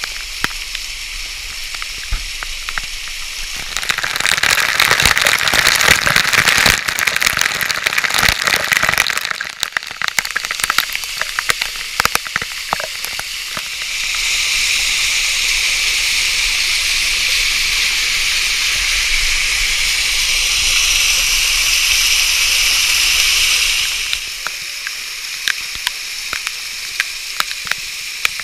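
A fifty-foot waterfall pouring onto rocks: a steady rush of falling water with a crackling spatter of drops. It grows louder for several seconds twice, changing abruptly each time.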